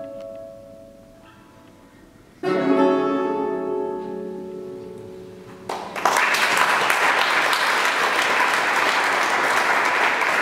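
Portuguese guitar and classical guitar play the closing chord of a fado: a last chord is struck about two and a half seconds in and left to ring and fade. About six seconds in, audience applause breaks out and carries on steadily.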